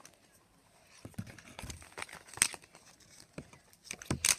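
Packaging being torn and crinkled by hand, a scatter of irregular small crackles and clicks.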